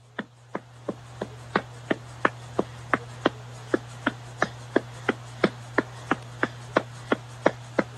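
An even series of light, sharp clicks or taps, about three a second, over a steady low hum.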